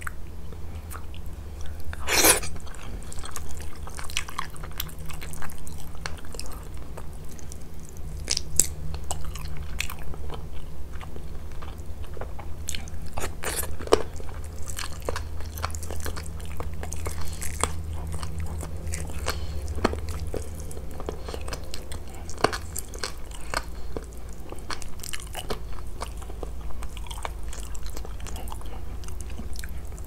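Cooked chicken from a chicken mansaf being torn apart by hand: wet, sticky tearing of meat and skin with scattered sharp clicks and snaps. The strongest click comes about two seconds in, over a steady low hum.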